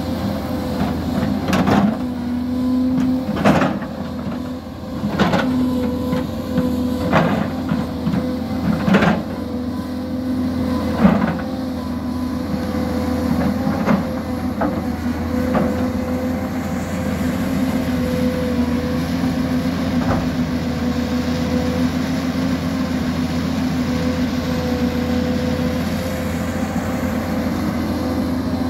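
Hyundai crawler excavator's diesel engine running steadily under hydraulic load while it digs. Sharp knocks come roughly every two seconds over the first half, then the engine runs on alone.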